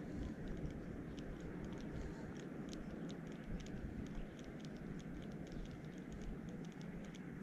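Low, steady rumble of wind on the microphone, with many faint, irregular light clicks throughout.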